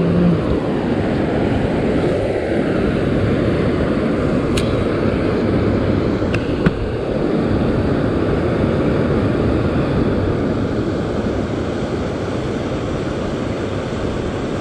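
Steady loud rushing noise, with a few light clicks in the middle.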